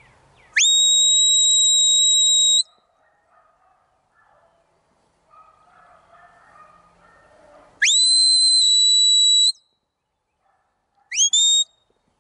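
Stockdog handler's whistle commands to a herding dog: a long whistle that sweeps up and holds one high pitch for about two seconds, a second one like it a few seconds later, and a short double whistle near the end.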